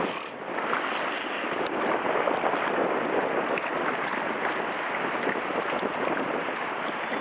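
Sea water washing and sloshing against shore rocks: a steady rushing noise.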